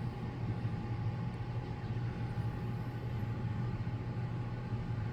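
Steady low mechanical hum with a thin constant whine above it, unchanging throughout.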